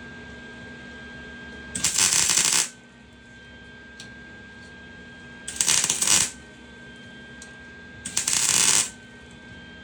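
Electric welding arc crackling and spitting in three short bursts of under a second each, typical of tack welds being laid, with a steady hum between them.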